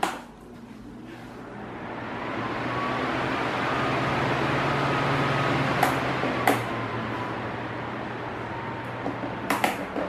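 Mallory Olimpo TS 40 cm 126 W fan switched on with a click of its base button, its blades spinning up over a few seconds into a steady rush of air over a low motor hum. More button clicks about six seconds in and near the end, after which the airflow eases slightly. It is ordinary fan noise, without the odd motor whine the reviewer finds in many newer fans.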